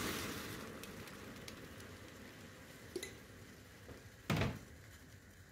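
Pot of water at a rolling boil on a gas hob, flaring into a burst of fizzing as salt is poured in, which settles within about a second into steady bubbling. A small click about three seconds in and a short, louder knock just after four seconds.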